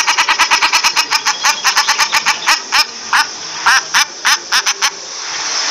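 Common shelduck calling: a fast cackling run of short rising notes, about seven a second, that thins into spaced groups and stops near the end, over a steady hiss.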